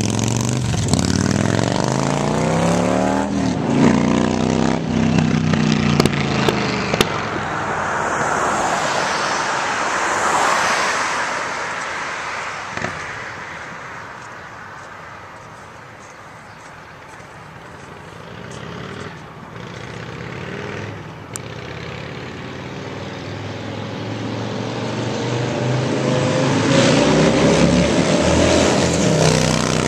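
Custom chopper motorcycle engine accelerating hard away, its pitch rising and dropping again and again as it shifts up through the gears, then fading into the distance. Near the end the engine sound grows louder again as the bike comes back.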